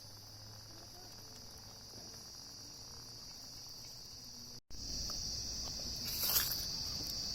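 Insects chirring steadily in one high, unbroken tone. The sound cuts out for an instant a little past halfway and comes back louder, with a brief rustle soon after.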